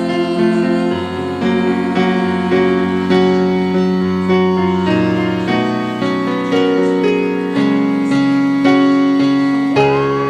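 Instrumental interlude of a pop ballad's karaoke backing track: piano or electric-piano chords played in a steady rhythm, with no singing.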